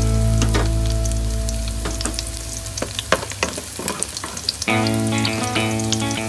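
Chopped garlic sizzling and crackling in hot oil in a stainless steel pot, stirred with a wooden spoon. Background music fades out over the first couple of seconds and comes back in about two-thirds of the way through.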